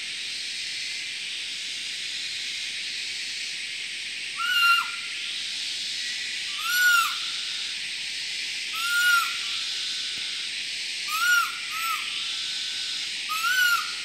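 A barking deer (muntjac) lure call blown by mouth through cupped hands. It gives short rising-then-falling whistled calls, six in all, roughly every two seconds after the first few seconds, with two close together near the end.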